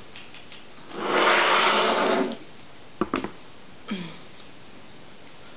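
A loud slurp from a mug, lasting about a second, then two sharp knocks as the ceramic mug is set back down on the wooden table.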